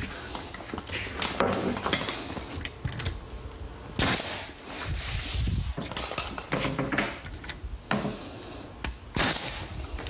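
Pneumatic finish nailer firing 4-penny finish nails into a plywood cabinet back: sharp shots a few seconds apart, the loudest about four and nine seconds in, each with a short hiss of air, among lighter knocks from handling the wood.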